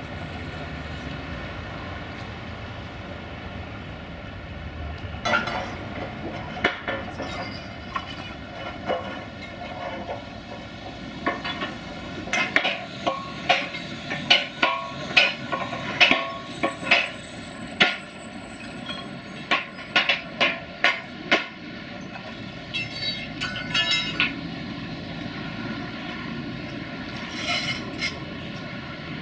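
Steel bars and pipes knocking against the trailer's steel ramp sections: a run of sharp, ringing metallic knocks, coming one or two a second through the middle and thinning out toward the end, over a steady low hum.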